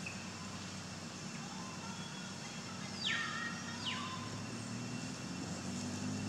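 Outdoor ambience with a steady low hum and a background hiss, broken about three seconds in by one short, high, falling chirp-like call.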